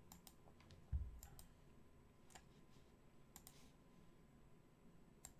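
Faint, scattered computer clicks, some in quick pairs, over near silence, with one dull low thump about a second in.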